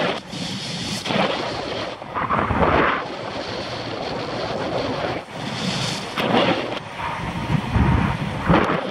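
Wind buffeting the microphone of a camera on a road bike moving at about 25 mph, rising and falling in several gusts.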